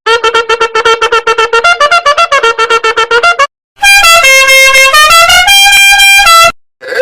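Meme sound effects: a fast run of short pitched notes, about ten a second, stepping through a little tune, then after a brief break a melody of held notes stepping between a few pitches that cuts off suddenly.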